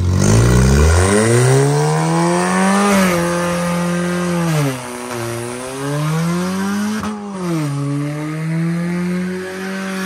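Ford Fusion's engine revving hard in a front-wheel-drive burnout, the revs climbing, holding, and dropping sharply several times as a front tire spins until it smokes.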